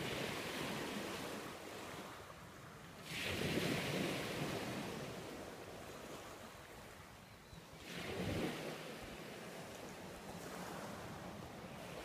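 Pacific Ocean surf breaking and washing onto a pebble beach. The rushing surges in three times, the loudest swell coming about three seconds in and another near eight seconds, each fading back between.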